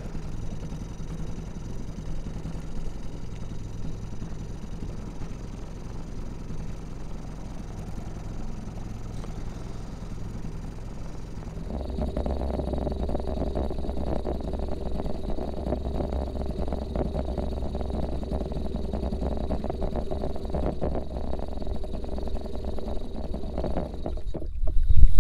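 A small motor running steadily, growing louder after about twelve seconds, with a sudden loud noise at the very end.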